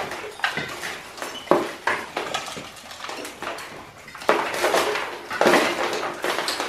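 A hand tool chipping and scraping away old brick and mortar to take out a masonry ledge: an irregular run of sharp knocks and scrapes.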